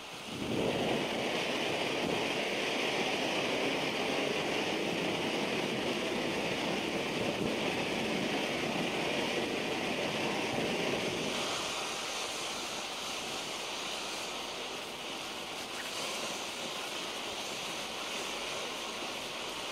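Standard Fireworks low-noise ground fountain hissing steadily as it sprays sparks. The gush strengthens about half a second in, and about eleven seconds in it falls back to a quieter, thinner hiss.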